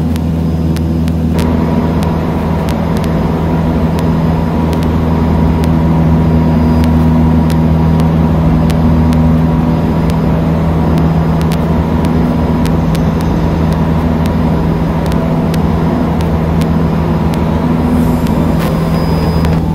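Cessna 152's Lycoming O-235 four-cylinder engine and propeller running steadily at cruise power in flight, heard from inside the cockpit as a loud, even drone.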